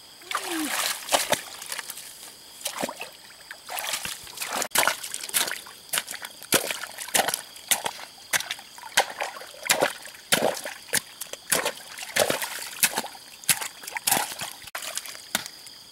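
Muddy water sloshing and splashing in a flooded pit as mud is scooped out by hand and a pole is jabbed into the wet earth, in repeated short wet splashes about one to two a second.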